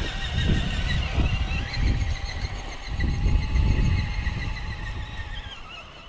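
Radio-controlled car driving, its motor giving a steady high whine over low rumbling bursts; the sound fades near the end.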